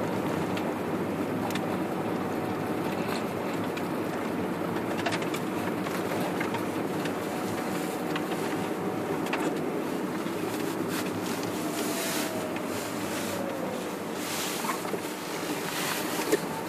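Car driving along a snow-covered road, heard from inside: a steady hum of tyres and engine, with a faint whine that falls in pitch a little past the middle as it slows.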